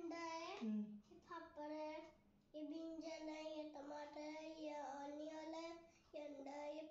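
A young girl singing in a high voice, in a few phrases of long held notes, the longest lasting about three seconds.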